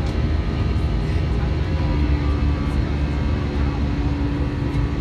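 Inside the cabin of an Airbus A321-200 climbing out after takeoff: its jet engines and the rushing airflow make a steady, deep roar. A steady low hum joins in about two seconds in.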